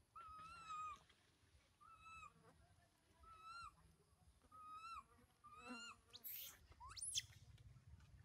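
Infant long-tailed macaque giving about five short, thin coo calls, one every second or so, then a sharp rising squeal about seven seconds in: the distress cooing of a baby separated from its mother.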